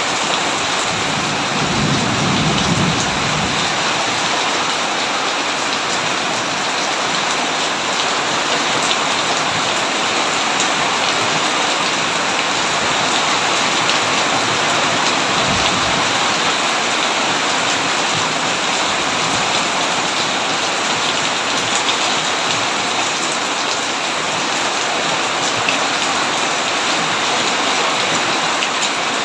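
Heavy rain falling steadily, a dense even hiss, with a low rumble of thunder about two seconds in and a brief low thud near the middle.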